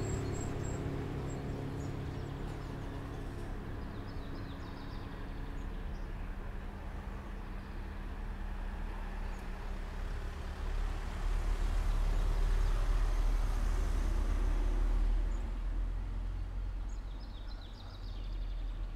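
The last held notes of music fade out over the first few seconds, leaving a steady outdoor-sounding ambience: a low rumble that swells loudest for a few seconds in the middle, with a few faint high chirps.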